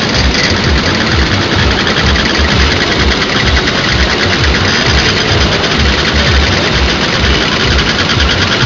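Many Simson single-cylinder two-stroke mopeds and scooters running together at close range, a loud, steady, dense rattle of massed small engines.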